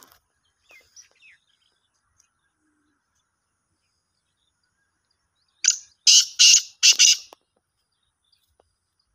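Male black francolin calling: one burst of about five loud, harsh notes in quick succession, lasting about a second and a half, a little over halfway through.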